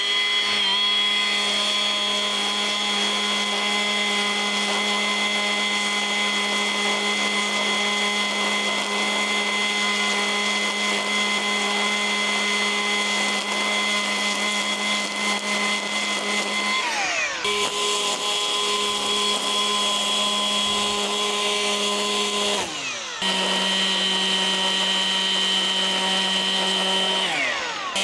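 Milwaukee dual-battery cordless line trimmer running at speed, a steady high whine as its spinning line cuts grass along an edge. Three times, about two-thirds of the way in, a few seconds later and again near the end, the motor slows and the whine glides down in pitch, then picks up again.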